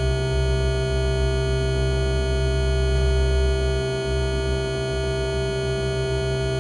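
Electronic drone soundtrack: a buzzing, held chord of many steady tones over a deep low hum, unchanging.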